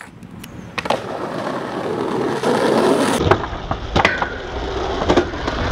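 Skateboard wheels rolling on pavement, growing louder as the skater approaches, then a sharp pop about three seconds in and several hard clacks of the board striking a metal handrail and landing.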